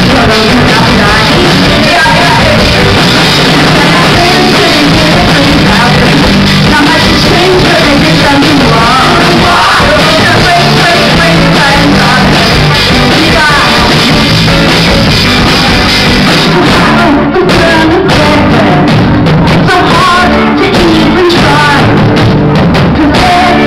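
Live rock band playing loud, with electric guitars, bass guitar and drums under a woman's lead vocal.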